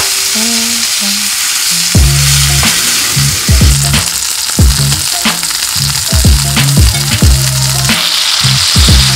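Steak searing in a cast-iron skillet, with butter melting beside it: a steady sizzle. A low bass beat of background music runs underneath.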